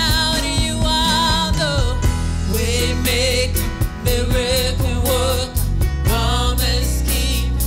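A woman singing a gospel worship song into a microphone, holding long notes with vibrato, over a live band with drums and keyboard.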